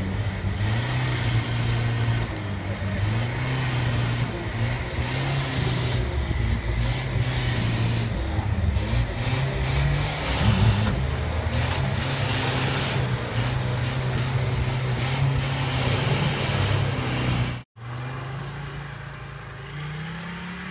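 Off-road 4x4 engine running and revving unevenly, its pitch rising and falling again and again. About three-quarters of the way through the sound cuts off sharply and a quieter engine takes over, revving up near the end.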